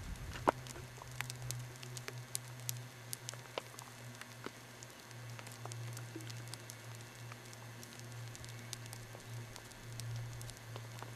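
Pea-sized hail pellets striking close by as separate, irregular sharp ticks, a few each second, over a steady low hum.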